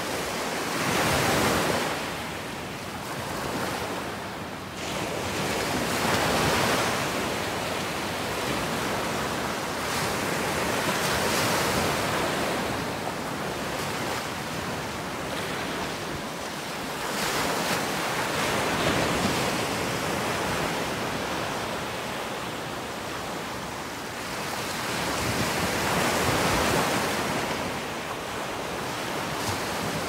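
Ocean surf: small waves breaking and washing onto a beach, each one swelling and fading every few seconds.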